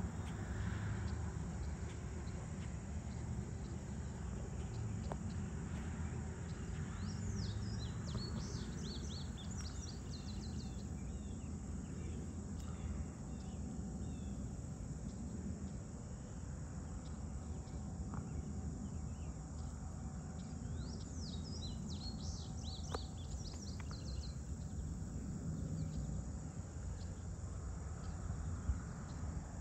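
Summer evening farm ambience: a steady chorus of insects, with a bird chirping in two short bursts of quick high notes, about a quarter of the way in and again about two-thirds through, over a low steady rumble.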